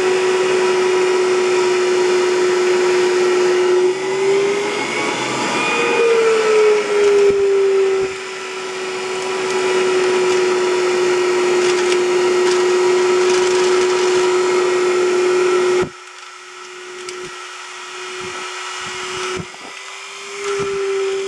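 ДВ-1КМ 27-volt electric centrifugal blower running, a steady motor whine over rushing air. Its pitch rises and falls briefly about five seconds in. About sixteen seconds in the sound drops much quieter and loses its low end, then comes back up near the end.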